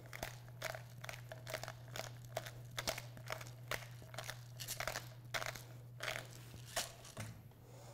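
Hand pepper mill grinding peppercorns: a steady run of dry, crunchy clicks, two or three a second. Then a wire whisk works the chowder in a stainless steel pot.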